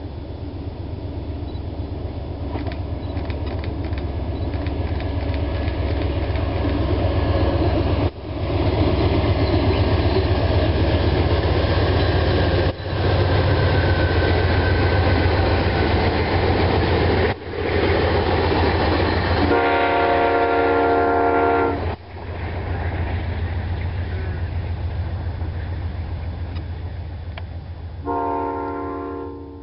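Amtrak passenger train with a diesel locomotive passing, its engine rumble and rail noise building up as it approaches and holding loud as the bilevel cars roll by. The horn sounds a steady multi-note chord for about two seconds past the middle, and again briefly near the end.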